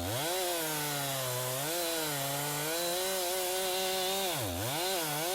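Chainsaw running under load as it cuts the sloping top cut of a felling notch into a dead, partly hollow ash trunk. The engine's pitch sags and picks back up several times: near the start, about two seconds in, and again near the end.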